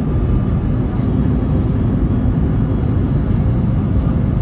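Cabin noise inside an Airbus A321neo on approach: a steady low rumble of engines and rushing air, with a faint steady hum over it.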